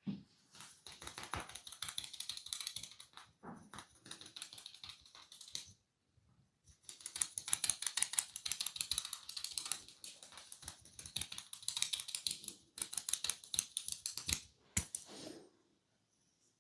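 Fingers scratching rapidly through scalp hair close to the microphone, a dense crackle of many small clicks a second, in two long bouts and a short third one near the end.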